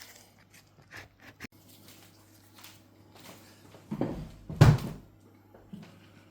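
Small objects being handled: a few light clicks, then two dull knocks about four and four and a half seconds in, over a faint steady low hum.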